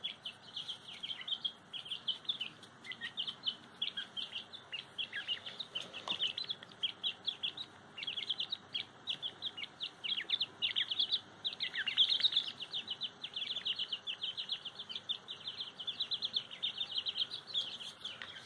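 Young francolin (teetar) chicks peeping continuously in quick, short, high chirps, many dropping in pitch, coming thicker and louder about halfway through.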